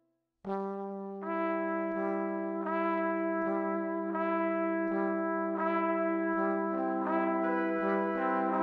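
Background music: a piece starts about half a second in with held, brassy chords that change on a steady beat of roughly one and a half notes a second.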